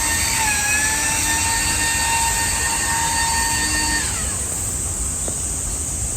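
A machine's steady high whine with overtones dips slightly in pitch, then falls and stops about four seconds in, over a constant high hiss.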